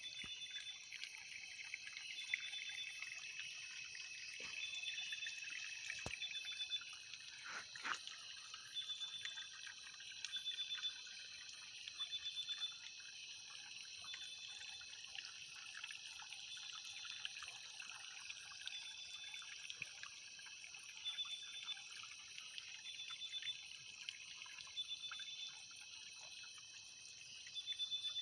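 Night-time outdoor chorus of insects: a steady high-pitched trilling throughout, with a short, higher call repeating every second or two. A few soft knocks and rustles from handling come through, the sharpest about six and eight seconds in.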